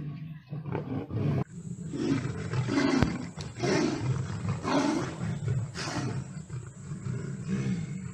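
A lion and a tiger roaring at each other as they fight, in a string of roars about once a second.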